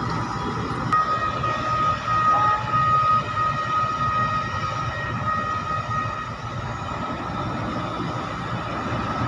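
Warning alarm on heavy port machinery sounding a high steady tone in short repeated beeps for about five seconds, over the low rumble of diesel engines from the trucks and container handlers.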